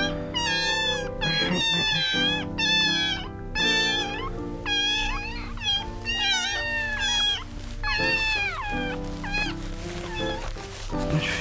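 Very young kittens meowing in high, shrill cries, many short calls in quick succession, from a kitten being held and wiped with wet cotton to stimulate it to urinate. Background music runs underneath.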